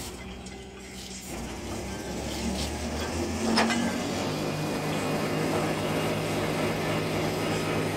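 Pump-hoist rig's hoist running steadily as its mast cable lifts a length of drop pipe, with a steady hum settling in about four seconds in. A single sharp knock comes about three and a half seconds in.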